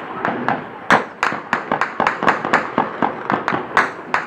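Rapid, irregular gunshots, several a second, some cracks louder than others.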